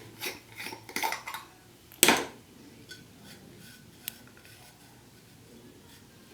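Clinks and clicks of small hard objects being handled, with a louder burst about two seconds in, then only a few faint ticks.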